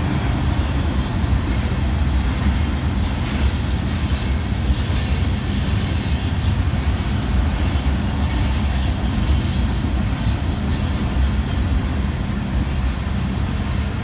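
Freight train of grain hopper cars rolling past, a steady loud rumble of steel wheels on the rails with brief high wheel squeals now and then.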